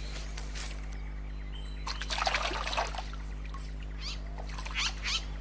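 Birds calling: a cluster of high calls about two seconds in, then a few quick falling whistles near the end, over a steady low hum.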